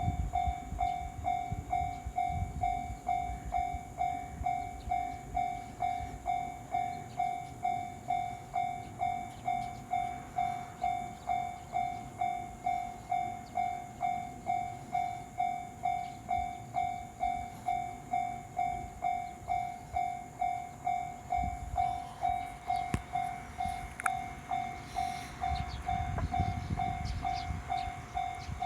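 Japanese level crossing warning bell ringing steadily, a little under two dings a second, while a train rumbles past. The rumble is loudest at the start and again in the last several seconds.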